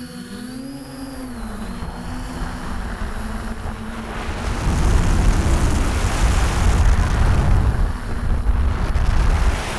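DJI F550 hexacopter's six Propdrive 900KV brushless motors with 10x5 propellers whining, their pitch bending up and down as the throttle changes. About five seconds in, a louder low rumble of wind buffeting the onboard camera's microphone rises over the motors as the craft flies and rolls fast.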